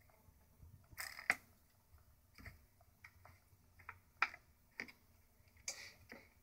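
Light, irregular plastic clicks and taps from a circular plastic track cat toy as cats bat at the mouse inside the track. There are about eight taps, the sharpest a little over a second in.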